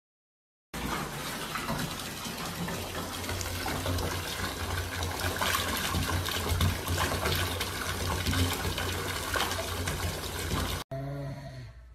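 Bathtub mixer tap running, a steady stream of water pouring into a partly filled tub. It starts suddenly about a second in and cuts off suddenly near the end.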